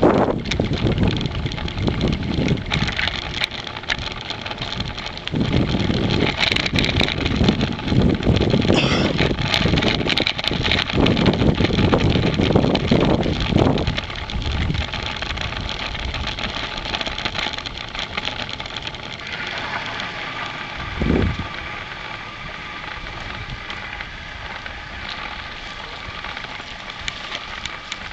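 Wind buffeting the microphone of a camera on a moving mountain bike, with tyre and rattle noise from the rough lane. It is loud and gusty for about the first half, then dies down to a steadier, quieter noise as the bike slows.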